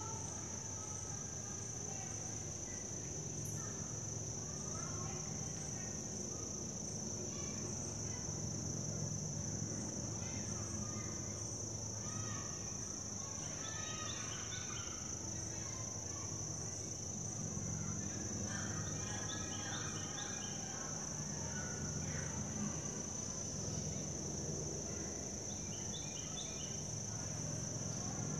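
Steady high-pitched insect chorus, a continuous buzzing trill, over a low background rumble, with short clusters of chirping calls now and then.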